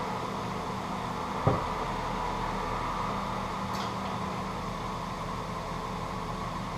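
Pickup truck idling: a steady hum with a fan-like hiss over it, and a single sharp click about one and a half seconds in.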